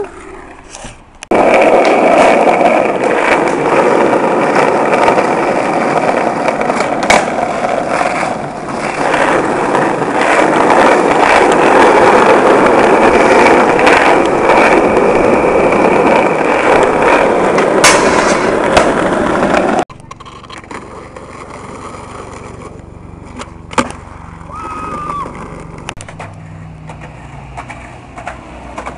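Skateboard wheels rolling over pavement close to the microphone, a loud, rough, steady rumble that cuts off suddenly about two-thirds of the way through. After it comes a much quieter outdoor background with a few sharp knocks.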